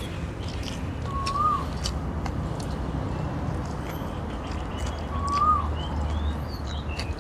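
A bird repeats a short whistled note that rises and then dips, twice about four seconds apart, with a few higher chirps, over chewing and mouth clicks close to the microphone.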